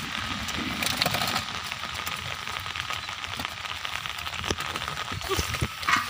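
Live fish flapping and slapping inside a wet nylon fishing net as it is handled, a dense crackling patter of small wet slaps and rustles, with a few louder knocks near the end.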